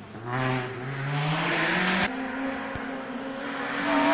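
A rally car's engine approaching along the stage and accelerating, its note climbing in pitch. A sharp crack comes about two seconds in, then the note holds steadier and grows louder as the car nears.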